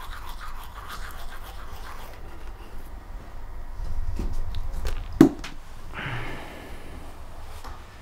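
Teeth being brushed with a toothbrush: a scratchy scrubbing. A sharp knock about five seconds in is the loudest sound.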